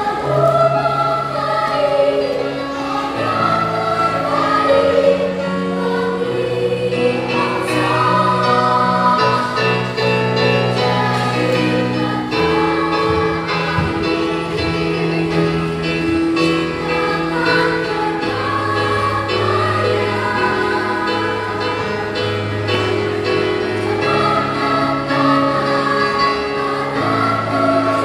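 Children's choir singing in parts, several voices holding long notes together that shift in pitch every second or two.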